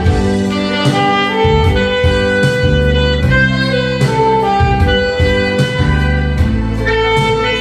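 Alto saxophone playing a slow Korean pop ballad melody over a recorded backing track with bass and drums, sustained notes moving from one pitch to the next.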